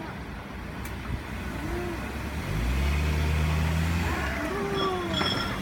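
A road vehicle's engine comes in about two and a half seconds in as a steady low hum, holds for a second and a half, then eases off under general outdoor traffic noise.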